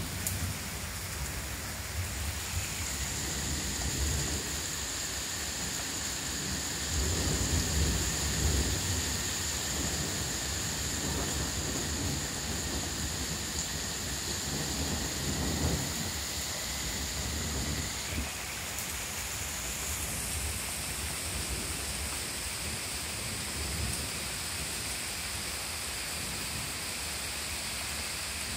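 Heavy rain pouring steadily in a thunderstorm, with low rumbles of thunder rolling in and out, strongest about seven to nine seconds in.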